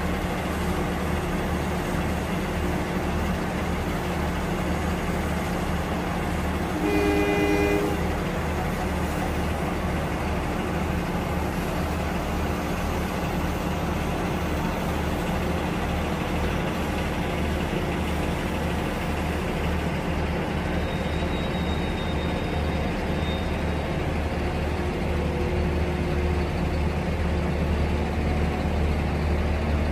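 Railway diesel engines idling steadily, among them the Plasser & Theurer track-maintenance vehicle's engine. About seven seconds in, a train horn gives one short toot lasting about a second. The engine rumble grows a little louder near the end.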